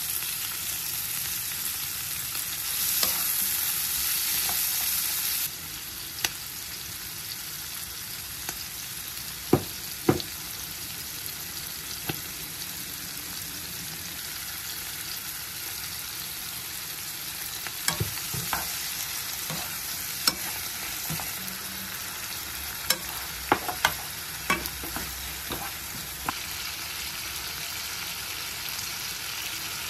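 Food sizzling as it fries in a pan, stirred now and then with a utensil that clicks and knocks against the pan. The sizzle is louder for a couple of seconds near the start.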